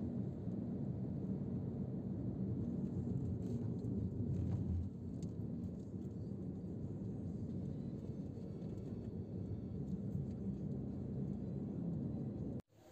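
Steady low rumble of a moving vehicle, with road and wind noise on the microphone. It cuts off abruptly near the end.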